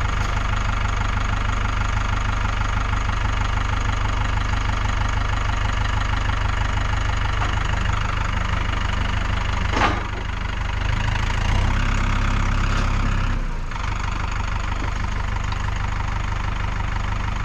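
A tractor engine idling steadily, with a sharp click about ten seconds in and a short stretch of slightly higher level after it.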